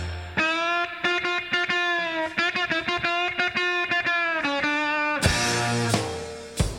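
Rock soundtrack music: an electric guitar plays long, sustained melody notes, joined by sharp drum hits about five seconds in and again near the end.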